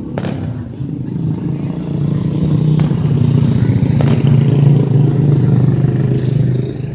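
A motorcycle engine running close by, growing louder for a few seconds and then fading near the end, with a few sharp firework cracks over it.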